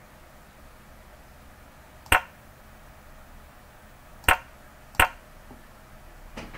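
Three sharp computer mouse clicks: one about two seconds in, then two close together a little past four and five seconds, over a faint steady hiss.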